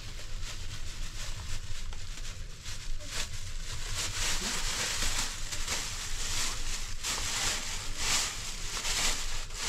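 Continuous rustling, crackling noise that swells and fades irregularly, with a steady low hum underneath.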